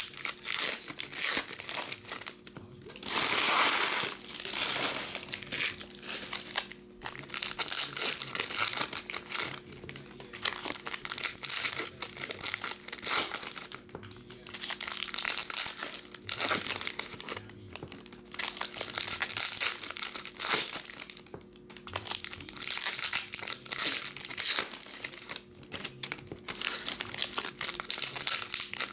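Foil wrappers of Topps 2022 Series 1 baseball card packs being torn open and crinkled by hand, one pack after another, crackling in uneven spurts with short pauses between.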